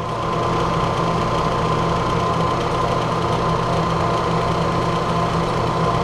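Gas boiler running with its blower fan motor going, a steady hum with a thin high whine and no squeal. The fan motor bearing has just been lubricated.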